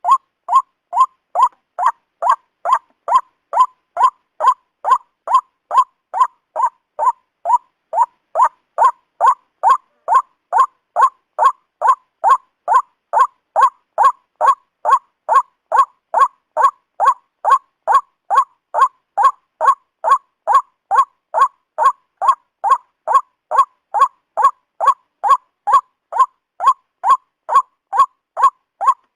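White-breasted waterhen call: a short hoarse note repeated evenly about twice a second, without a break.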